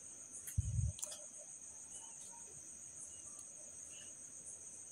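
Crickets chirping steadily in a continuous high-pitched trill. A brief low thump comes about half a second in.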